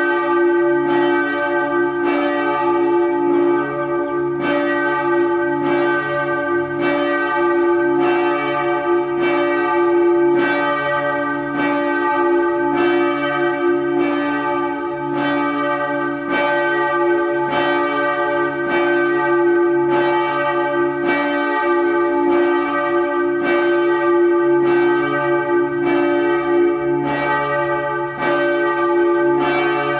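Bells ringing in a steady peal, a little more than one stroke a second, their tones ringing on between strokes.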